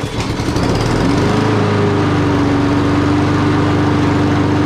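Honda gas walk-behind mower's four-stroke single-cylinder engine starting up and settling within about a second into steady, loud running.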